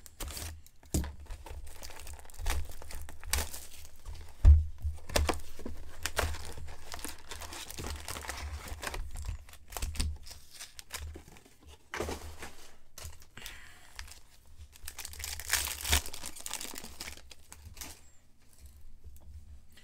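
Hands tearing open and crinkling the plastic wrapping of a box of trading-card packs, with scattered clicks and rustles of handling, louder crinkling for a couple of seconds near the end.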